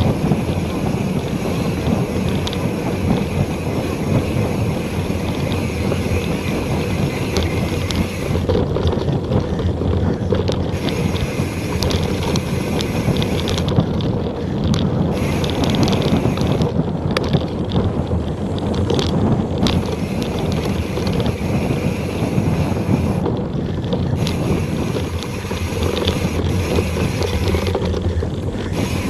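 Wind noise on the action camera's microphone and the rumble of a mountain bike's tyres over a dirt trail at speed, with frequent short clicks and rattles.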